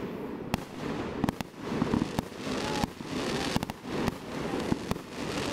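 Aerial fireworks shells bursting: a quick series of about ten sharp bangs over a continuous rumbling wash of sound.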